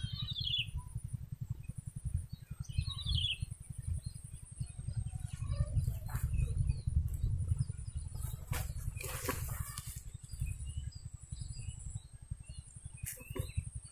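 Outdoor ambience with two short bird chirps, one near the start and another about three seconds in, over a steady high-pitched hum and a low rumble. A few brief rustles come through later on.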